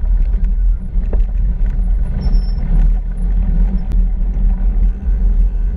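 Wind buffeting the camera microphone over the rolling roar of a mountain bike's tyre on tarmac at speed: a loud, steady low rumble with a couple of faint clicks.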